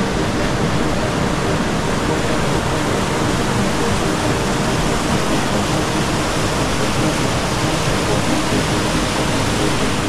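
Mountain stream pouring over a small rocky cascade into a pool: a steady, loud rush of white water.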